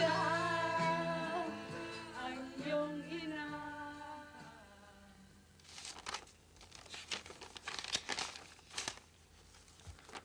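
A song with singing fades out over the first four seconds. From about six seconds in come irregular crackles and rustles of paper as letters and sheets are handled.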